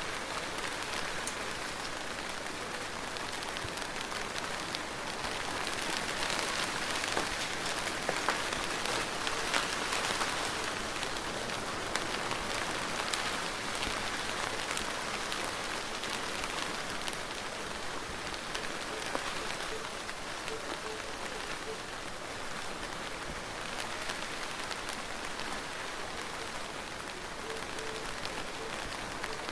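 Steady rain falling, an even hiss with scattered drop ticks, heavier for a while early in the middle before easing back.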